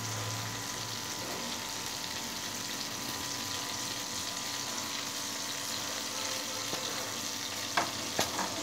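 Tomato pieces in hot oil sizzling steadily in a steel kadai as the cooking winds down, with a few light knocks near the end as the kadai is handled.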